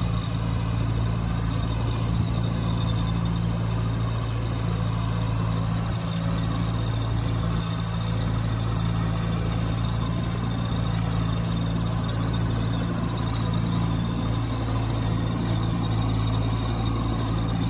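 Goose GS1028E tracked combine harvester running steadily while cutting paddy: a constant engine drone with a strong low hum that does not change.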